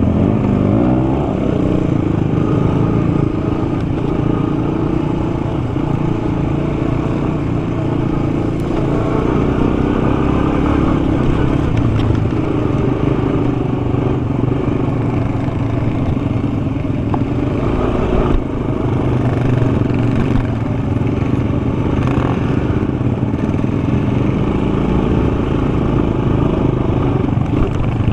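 Sport ATV engine running steadily under way, its note wavering a little with the throttle, over low wind rumble. A single sharp knock about two-thirds of the way through.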